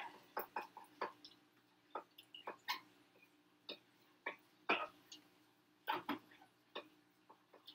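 Light, irregular clicks and knocks of pots and kitchen utensils being handled, several close together in the first second, then sparser.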